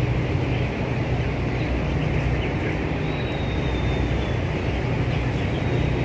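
Ventilation fans in a broiler chicken house running with a steady low hum, with faint chirping from the large flock of broiler chicks over it.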